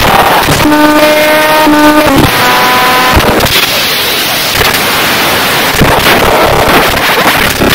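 Harsh digital noise music: loud, dense, distorted noise that is chopped and spliced with abrupt cuts. A pitched electronic tone with overtones cuts in about a second in, jumps in pitch, and drops out near the three-second mark.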